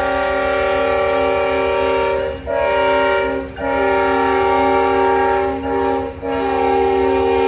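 Leslie RS5T five-chime air horn on a CSX locomotive sounding a long chord for a grade crossing, broken by four short releases about two and a half, three and a half, five and a half and six seconds in.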